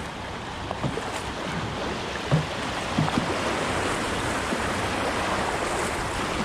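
Rushing water of a shallow river riffle splashing around a kayak's hull as it runs downstream, a steady roar of broken water with a few light knocks.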